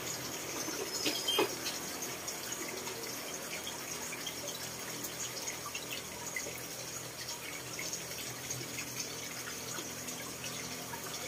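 Steady background hiss with a few faint clicks.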